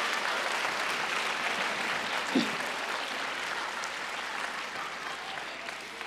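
Audience applauding, the clapping fading gradually away, with one brief voice heard about two seconds in.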